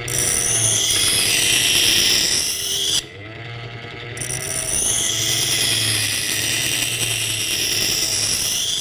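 Steel knife blade ground against the wheel of an antique hand-cranked Metabo grinder: a rasping, hissing scrape whose pitch rises and falls with the speed of the wheel. It breaks off about three seconds in, then builds up again.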